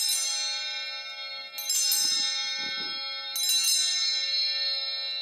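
Altar bells rung three times, each ring clear and high and left to ring on and fade, marking the elevation of the consecrated host at Mass.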